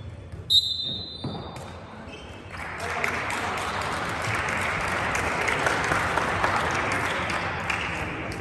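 Basketball-hall crowd noise. A short, high whistle sounds about half a second in, then from about two and a half seconds a steady din of spectators' voices and clapping.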